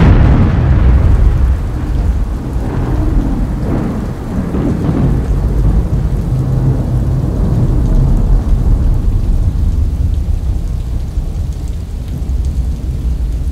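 Thunderstorm sound effect: a crack of thunder that starts suddenly and loud, then a deep rumble rolling on under steady rain, slowly easing off.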